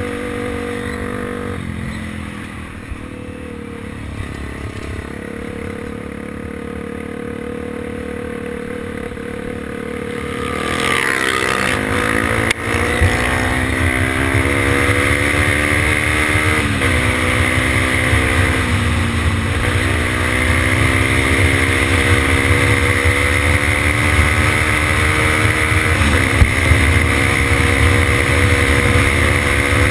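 Honda XR 250 Tornado's single-cylinder four-stroke engine running at a steady pace for about ten seconds, then getting louder as the bike accelerates hard through the gears: the pitch climbs and drops back at each of several upshifts. Wind rushes over the microphone as speed builds.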